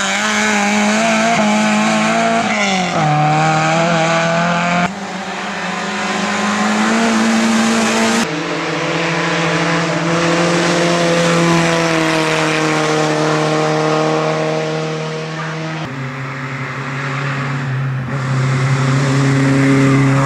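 Race cars' engines running hard at high revs, one car after another, the pitch climbing and dropping with throttle and gear changes. The sound changes abruptly several times as one car gives way to the next.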